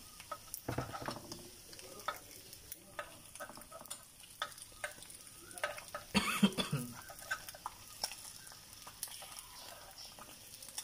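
Quail eggs sizzling in the round wells of an electric egg pan, while a metal utensil clicks and scrapes against the pan, lifting and turning the eggs. A louder clatter comes about six seconds in.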